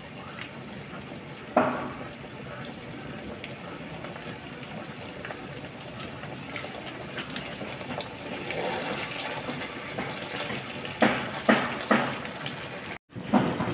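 Chicken wings cooking in a spiced masala in a pan, giving a steady bubbling sizzle. There is a sharp knock about a second and a half in and a few more knocks near the end.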